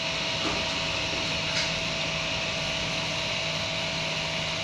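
Kingroon desktop FDM 3D printer at work printing a plastic gear: a steady whirring hum from its cooling fans and stepper motors, with a constant faint tone running through it.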